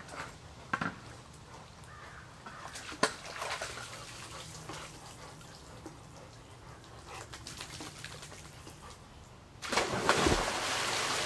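Small splashes and dripping water at the pool's edge. About ten seconds in, a person jumps into the swimming pool with a loud splash, followed by churning water.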